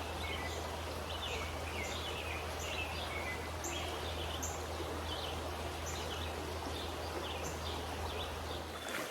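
Running stream water as a steady rush, with a songbird calling short, downward-sliding notes about once a second.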